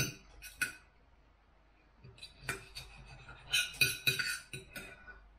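Knife and fork clinking and scraping against a dinner plate while cutting food: a few clinks at the start, then a quick run of clinks from about two seconds in.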